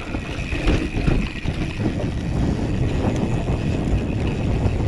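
Wind buffeting the microphone of a camera on a moving mountain bike, over the low rumble of riding on rough ground, with a faint steady high tone underneath.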